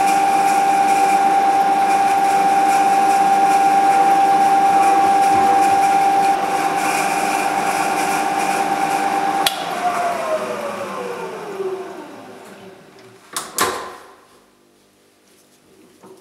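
Milling machine spindle running with a steady whine, then switched off about nine and a half seconds in and spinning down, its pitch falling away over a few seconds. A couple of sharp metallic knocks follow near the end.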